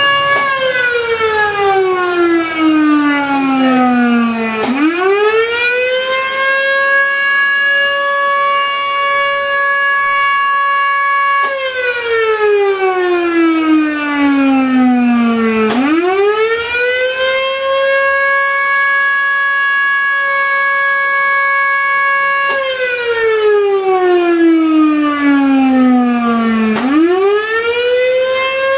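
Fire company's major siren wailing during a pager-activated siren test. Its pitch sinks slowly over about four seconds, sweeps quickly back up and holds high for several seconds, three times over.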